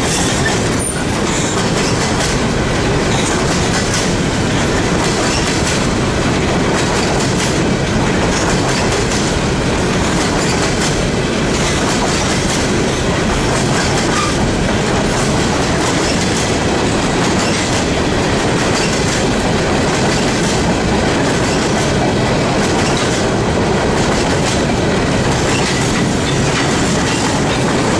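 Freight train of open-top hopper cars rolling past at close range: a steady, loud rumble of steel wheels on rail with recurring clickety-clack as the wheels pass over the track.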